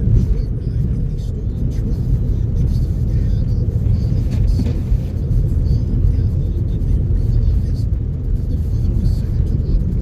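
Steady low rumble inside a moving vehicle's cabin as it drives on a snow-covered road: engine and tyre noise.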